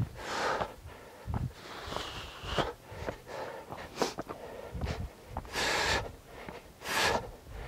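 A climbing hiker's heavy breathing, with a few loud exhales into the microphone, and footsteps on a stone path between them.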